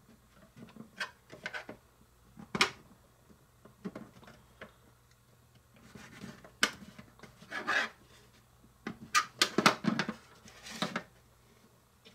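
A kitchen knife cutting rolled-flat bread into strips on a small cutting board: irregular taps of the blade against the board and soft rasping scrapes.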